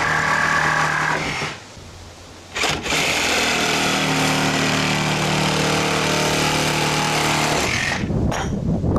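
Cordless power tool cutting through the garage door's metal hinges. It runs at a steady pitch, stops about a second and a half in, starts again about a second later and runs until near the end.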